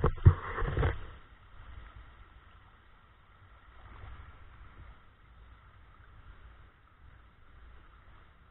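Heavy knocks and splashing in the first second as an underwater camera is moved through a shallow creek and brought up out of the water, then the faint, muffled flow of the creek.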